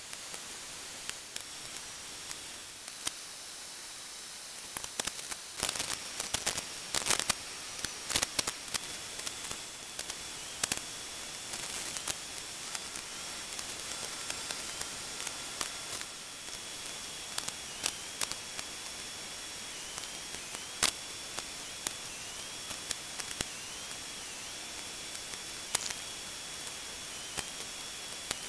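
Steady hiss with scattered sharp clicks and crackles, thickest a few seconds in. From about a third of the way through there are also faint thin high tones that now and then dip briefly in pitch.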